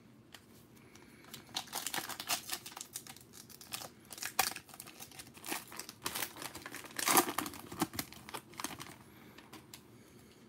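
A foil Prizm trading-card pack wrapper being torn open and crinkled by hand: a run of sharp crackles that is loudest about seven seconds in.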